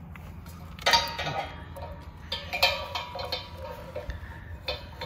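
Small metallic clicks and clinks of a propane hose's brass fitting being handled and threaded by hand onto the tank valve, beginning sharply about a second in and repeating irregularly.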